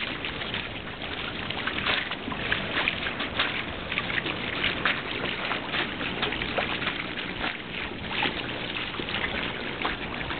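Water rushing along the hull of a trimaran under sail, with many short splashes, over a steady wind noise.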